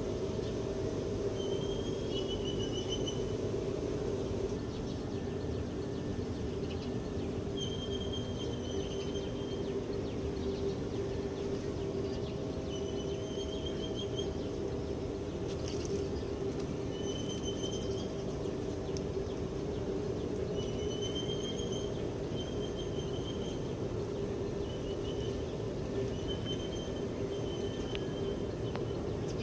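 Outdoor ambience: a steady low hum, over which a bird repeats short, high, warbling trills every second or two.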